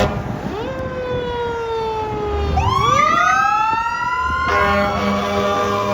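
Fire engine siren winding down in pitch, then winding back up. About four and a half seconds in, a steady blast of the engine's air horn joins it while the siren starts to fall again.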